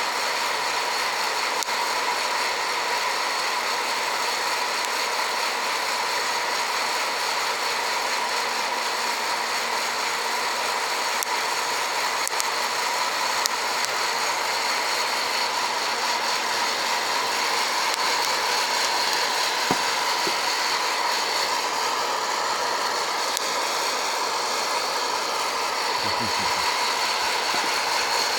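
Hot-air coffee roaster running mid-roast: a steady fan whir and hiss with a thin high whine as it blows air through the beans, its chaff cover off. A few faint clicks now and then.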